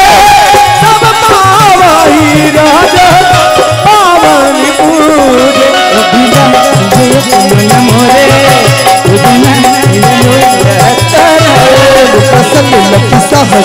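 Devotional Ramayan chaupai singing: a male voice sings a wavering, ornamented melody to harmonium, over a steady dholak rhythm.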